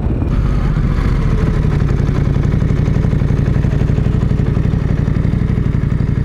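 Motorcycle engine, most likely the rider's own KTM 890 Adventure R parallel twin, running at low, steady revs with an even firing beat as the bike rolls slowly.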